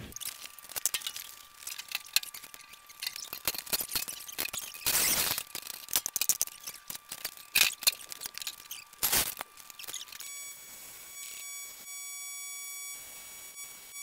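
Wrench and hand tools clanking and scraping on the steel of an old forage-harvester head as it is taken apart: a string of sharp metal knocks with two longer rasping bursts. From about ten seconds in, a steady high-pitched tone takes over.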